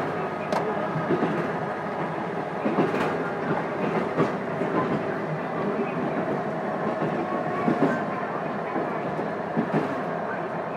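Interior running sound of a JR Kyushu KiHa 200-series diesel railcar, heard from a seat directly above its underfloor engine with the windows closed. The diesel engine and drive hum steadily while the wheels knock over rail joints every second or few seconds.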